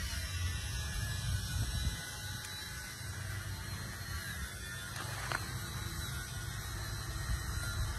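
Turbocharged truck diesel engine, standing out of the truck on the ground, running at idle with a fast, steady mechanical clatter.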